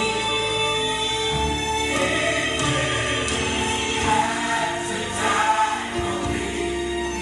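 Gospel music with a choir singing held notes over a steady accompaniment.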